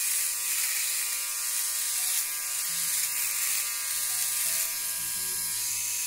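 Philips OneBlade Pro QP6520 electric shaver running steadily while it is drawn over two-day stubble on the cheek, shaving dry.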